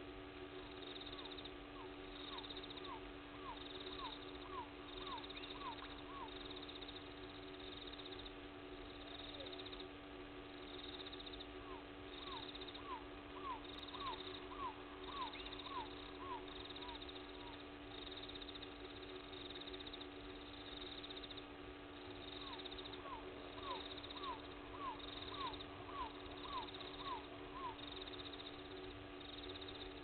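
Night animal chorus: a steady drone under a pulsing high trill, with three runs of about ten quick repeated call notes, roughly two a second.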